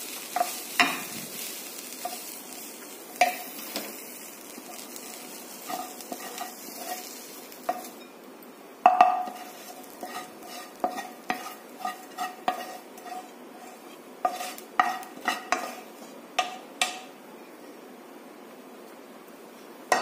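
A wooden spoon scrapes carrot fry out of a hot nonstick frying pan onto a ceramic plate, with faint sizzling for the first several seconds. Irregular sharp knocks and clinks of the spoon and pan against the plate follow, each with a short ring, the loudest about nine seconds in.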